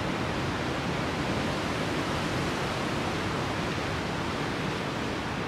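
Steady rushing noise, with a fluttering low rumble underneath, as of wind on the microphone; no distinct events stand out.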